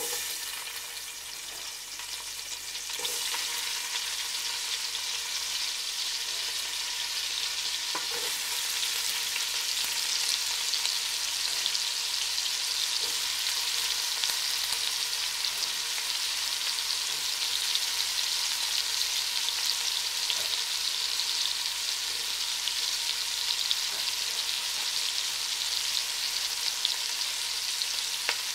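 Diced onions sizzling in hot bacon grease in a stainless steel pot. The sizzle grows louder about three seconds in, then holds steady, with an occasional light knock.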